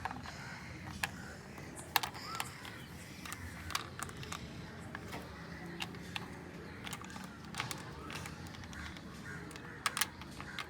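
Small game pieces being picked up, flipped and set down on a board, giving irregular light clicks and taps, about one or two a second.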